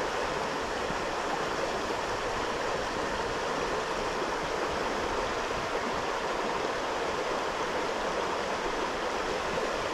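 Creek water running steadily, an even rushing with no breaks.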